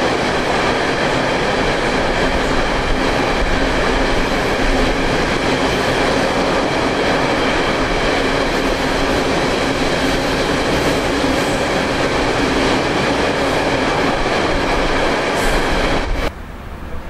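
Freight train rolling past close by: a loud, steady rumble of wagon wheels on the rails with a steady ringing note over it. The sound drops sharply about a second before the end.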